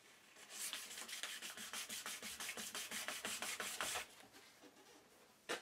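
High-grit glass paper rubbed in quick back-and-forth strokes over a wood-and-epoxy-resin dowel, polishing out file marks. The strokes stop about four seconds in, and a single short knock follows near the end.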